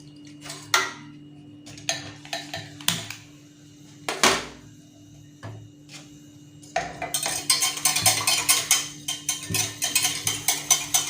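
A spoon knocking and clinking against a dish while starch is mixed into cold frankincense water. At first there are a few separate knocks; from about seven seconds in comes fast, continuous clinking and scraping as the mixture is stirred.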